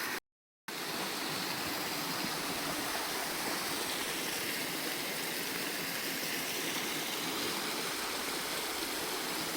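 Steady rushing of a moorland stream's flowing water, an even hiss with no change; the sound cuts out completely for about half a second near the start.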